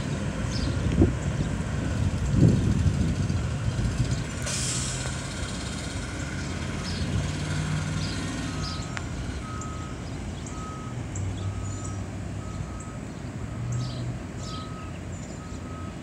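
School bus diesel engines running, with a short air-brake hiss about four and a half seconds in. From about halfway on, a reversing alarm beeps steadily, a little more than once a second.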